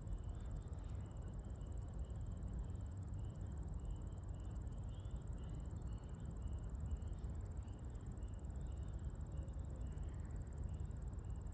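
An insect chirping steadily, short high chirps about twice a second, over a low steady rumble.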